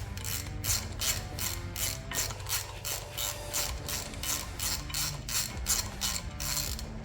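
Hand ratchet wrench clicking steadily, about three or four clicks a second, as it turns the bolts that fasten a brake rotor to its hub.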